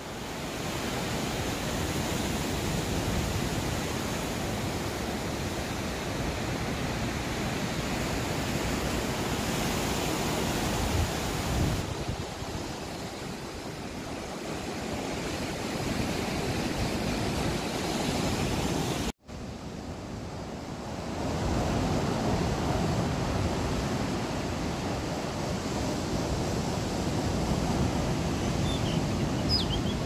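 Sea waves breaking over a rocky shore: a steady rushing wash of surf that swells and eases. The sound drops out for an instant about two-thirds of the way through.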